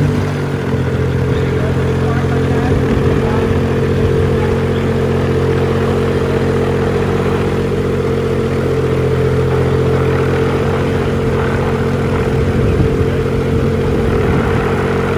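Viking 90 hp geared, liquid-cooled aircraft engine running steadily on the ground, just after starting, with the propeller turning at an unchanging speed.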